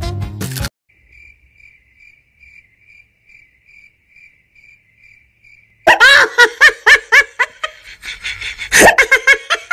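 Faint cricket chirping, a high pulse about twice a second, then loud laughter breaking in about six seconds in.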